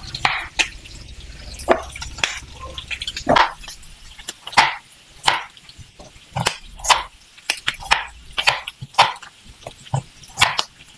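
Cleaver cutting white radish and carrot on a thick round wooden chopping board: a string of irregular crisp knocks, about one or two a second, each one the blade going through the vegetable and striking the wood.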